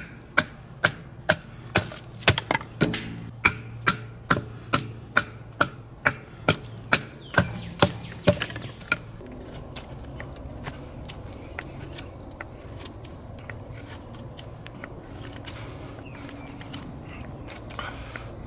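A wooden baton knocks on the spine of a Gerber Principle bushcraft knife, splitting hardwood: sharp, evenly spaced knocks at about two or three a second. The knocks stop about eight seconds in. After that, the knife's blade shaves curls off a stick, a faint scraping.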